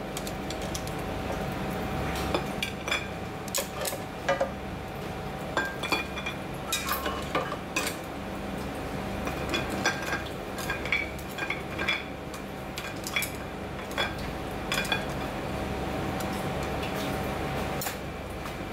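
Chopsticks clicking and clinking against oyster shells, a ceramic plate and a metal pot as boiled oysters in the shell are lifted out and piled up, the clinks thinning out over the last few seconds. A steady low hum runs underneath.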